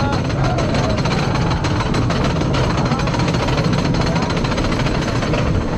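Wooden roller coaster train running on its track, a steady rapid clatter and rumble.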